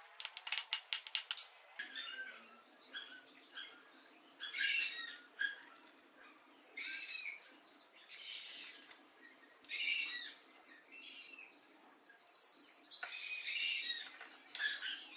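Metal lathe parts and hand tools being handled during assembly: a quick run of clicks near the start, then irregular short metallic clinks and rattles.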